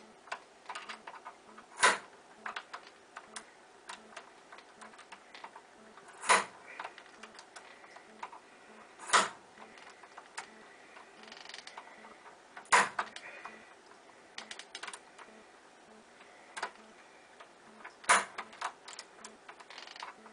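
Bump key in a Schlage deadbolt being struck hard five times, a few seconds apart, with lighter metallic clicks between the strikes as the key is worked back out and reset in the cylinder. The lock is not yet opening.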